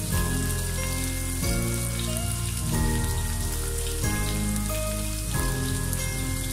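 Sliced onions sizzling steadily in hot oil in a wok, under background music whose sustained chords change about every 1.3 seconds.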